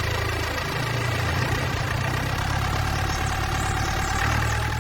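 An engine idling with a steady low rumble and a faint whine above it; the rumble dips briefly about a second in.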